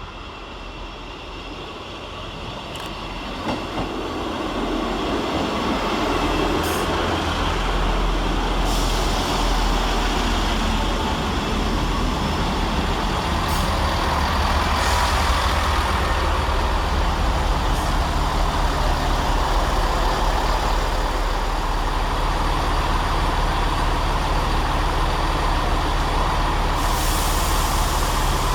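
Diesel multiple-unit passenger train running. Engine and wheel noise builds over the first several seconds, then holds steady, with a few faint clicks.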